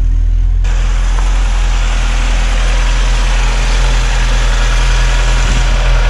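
1986 VW Golf Mk2's 1.8-litre GX four-cylinder petrol engine idling steadily and evenly, purring, heard close at the open engine bay. Its earlier rough, stalling running is cured.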